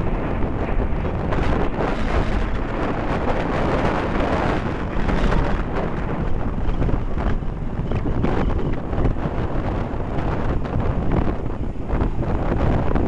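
Strong wind buffeting the microphone over the jet noise of the Red Arrows' BAE Hawk jets flying their display, swelling about four seconds in.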